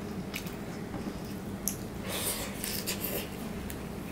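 Fingers mixing and scraping wet dal and food across a stainless steel plate: a few light clicks, then a longer stretch of rubbing and scraping about halfway through.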